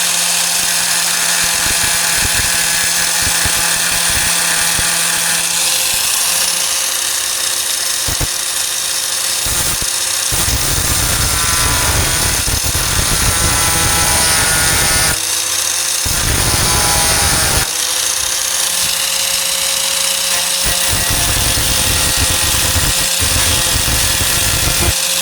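A 4-1/2 inch electric angle grinder runs steadily on the steel tailgate, cutting out or grinding back the rusted metal. Its sound changes partway through, with two short drops in load.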